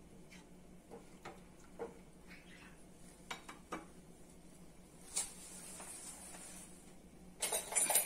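Wooden spatula stirring rasam in a nonstick frying pan, knocking and scraping against the pan a few times, with a quick run of clicks near the end over a faint steady low hum.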